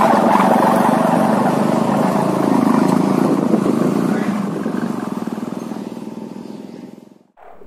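Kite hummer (sendaren) droning in the wind: a steady buzzing hum of several tones at once. It fades over the last few seconds and cuts off near the end.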